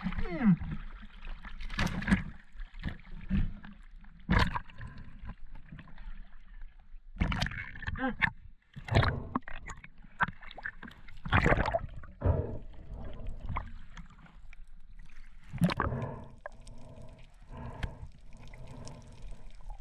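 Water splashing and sloshing around a snorkeler's action camera as it moves at and below the surface, with gurgling and bubbling underwater. The splashes come unevenly, a few louder ones standing out.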